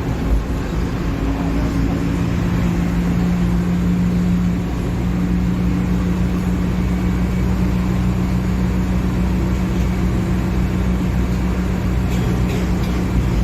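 Diesel engine of a Mercedes-Benz OF-1721 Bluetec 5 bus running steadily, with a brief dip in level and a slight change in pitch about four and a half seconds in.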